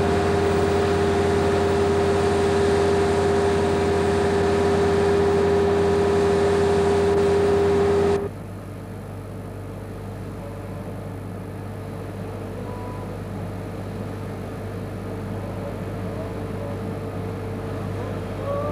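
Diesel engine of a Liebherr LTM 1800 mobile crane running steadily with a steady whine over a low hum; about eight seconds in it drops suddenly to a quieter, steady low engine hum.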